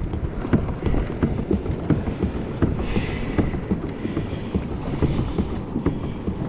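Choppy ocean water sloshing and slapping irregularly against a kayak hull, with wind rumbling on the microphone.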